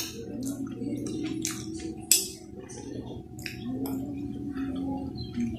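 Close eating sounds: wet chewing and lip smacks with a mouthful of rice and greens, and a metal spoon and fork scraping and clinking on a glass plate. One sharper click about two seconds in is the loudest, over a steady low hum.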